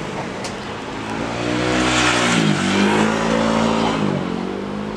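Airbus A350 airliner's jet engines rushing during its landing roll, swelling to a peak about two to three seconds in. A pitched engine hum rises and falls in pitch alongside.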